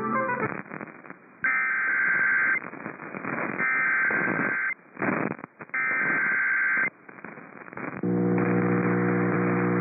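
Radio static, then three bursts of about a second each of the Emergency Alert System's digital SAME header, a harsh two-tone data warble that codes the start of an alert. About two seconds from the end, a steady low droning tone comes in.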